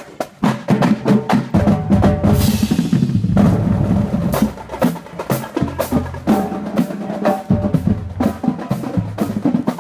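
Marching band playing as it passes: snare and bass drums beat a steady marching rhythm while brass, sousaphones among it, plays low held notes.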